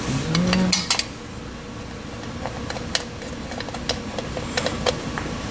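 Light metallic clicks and clinks of valve cover bolts being set in place and started by hand on a Honda GCV small engine's overhead-cam valve cover: a few scattered taps, the loudest about a second in.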